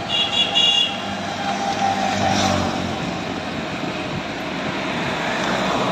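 Steady street traffic noise heard while riding along a road, with a few short, high repeated tones in the first second.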